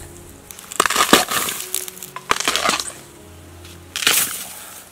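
Dry crunching and snapping of bamboo undergrowth and leaf litter, in three short loud bursts about a second or so apart, over soft background music.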